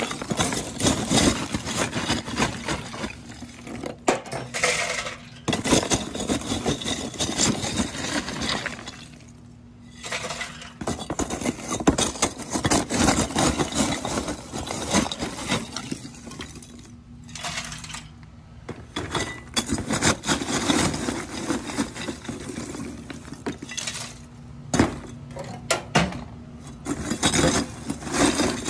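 Charcoal pieces poured and scooped from a flexible plastic tub into a metal chimney starter: a dense clatter of clinking lumps. There are two short lulls, about nine and about seventeen seconds in.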